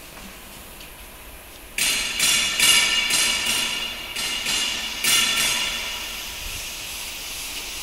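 Magnesium chip-cutting machine shaving an ingot: a sudden loud hiss starts about two seconds in, comes in several surges, then settles into a steadier hiss.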